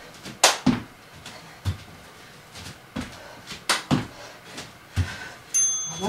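Burpees on an exercise mat: repeated thuds and scuffs of feet and hands landing. Twice, about three seconds apart, a louder landing comes with a sharp rush of noise.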